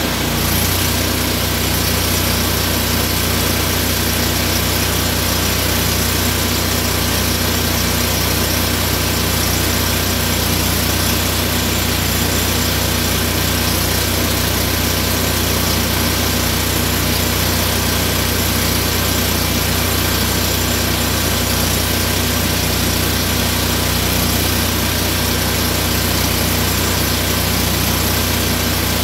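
An engine idling steadily at a constant speed, an even drone with no revving.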